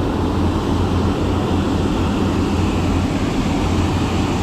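Steady rush of fast-flowing river water, with an even low rumble underneath.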